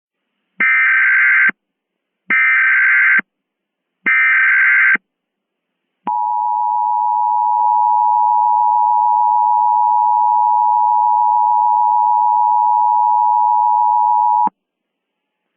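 Emergency Alert System tones. Three raspy SAME header data bursts, each about a second long, come first. Then the EAS two-tone attention signal holds steady for about eight seconds and cuts off abruptly.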